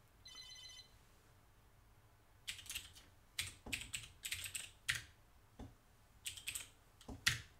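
Typing on a computer keyboard: a run of key clicks from about two and a half seconds in, then another short run near the end. A brief high tone sounds just after the start.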